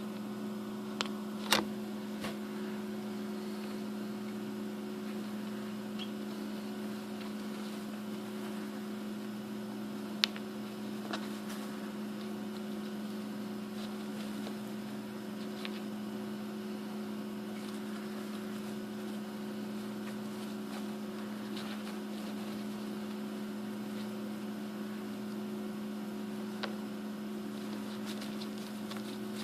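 Steady low hum, with a handful of brief sharp clicks scattered through it, the sharpest about a second and a half in and about ten seconds in.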